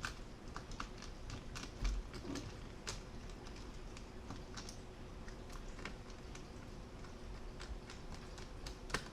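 Faint, irregular small clicks and taps of tools and small parts being handled during laptop reassembly, with a soft thump about two seconds in.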